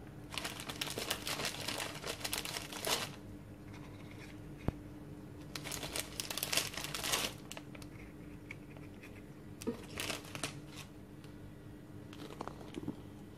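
Foil-lined plastic cracker packet crinkling as crackers are taken out of it, in three rustling bursts, with a single sharp click in between and a faint steady hum underneath.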